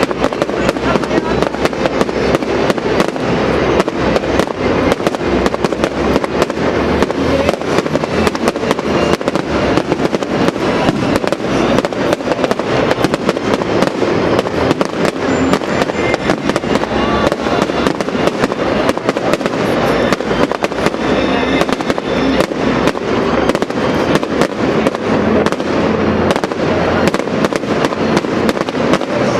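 Fireworks display: a dense, unbroken barrage of bangs and crackling shell bursts, many per second.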